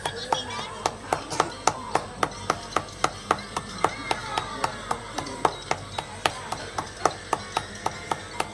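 Steady rhythmic clapping of a cupped hand on a small child's back, about three to four pats a second: chest percussion to loosen mucus during physiotherapy for a cough.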